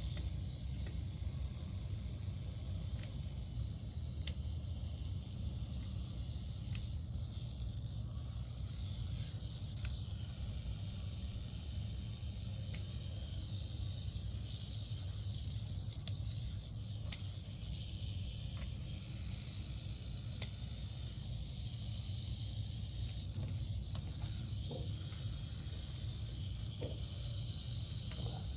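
Rattlesnake tangled in garden netting rattling steadily: a continuous, hiss-like buzz, the snake's defensive warning while it is being worked free. A few faint clicks sound now and then.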